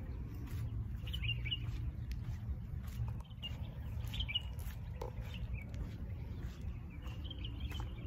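Small birds chirping in short calls, several times, over a steady low rumble.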